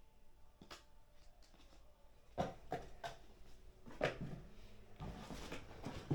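A few scattered clicks and knocks, with a short run of rustling and knocking near the end.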